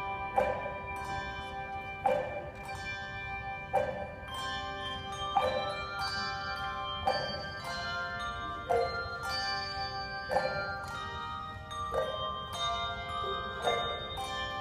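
Handbell choir playing a slow piece: a chord of bells struck about every second and a half, each left ringing on under the next, echoing in a large gymnasium.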